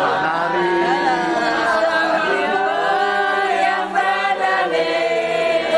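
A group of people singing together unaccompanied, several voices holding and moving through notes in unison.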